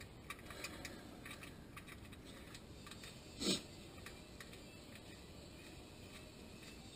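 Faint light metallic clicks and ticks as an oil drain bolt is threaded back into a dry-sump oil pan by hand. One brief louder sound with a falling pitch comes about three and a half seconds in.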